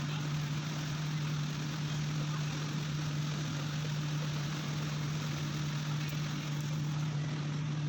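Electric buffing machine running steadily at a constant speed, a strong even hum under a spread of hiss.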